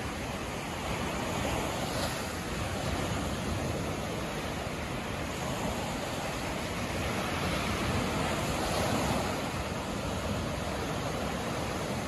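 Black Sea surf: small waves breaking and washing up a sandy beach in a steady rushing wash that swells and eases with each wave, loudest about eight to nine seconds in.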